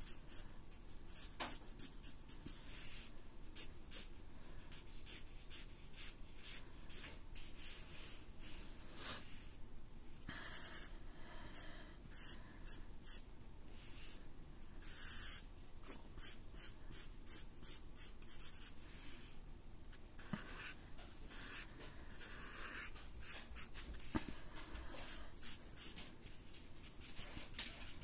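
Sharpie marker's felt tip scratching across paper in a quick run of short strokes, as lines and hatching are drawn.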